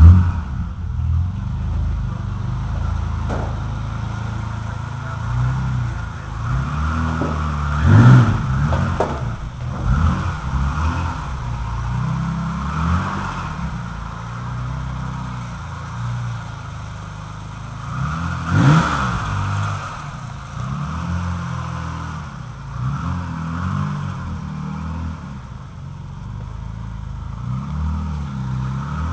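BMW 635CSi's straight-six engine running through a custom stainless steel exhaust, idling and blipped repeatedly so the revs rise and fall, with the sharpest blips about eight seconds in and again a little past halfway.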